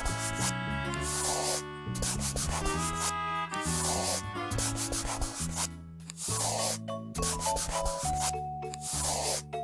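A scratchy scribbling sound effect in quick repeated strokes, over a simple children's background melody of held notes.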